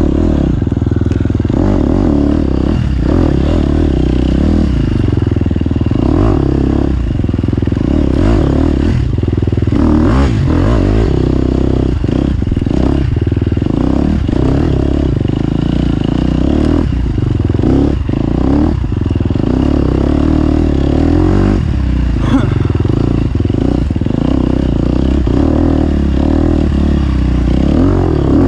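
Off-road motorcycle engine running hard under constant throttle changes, revving up and dropping back again and again, with clattering knocks from the bike over rough ground.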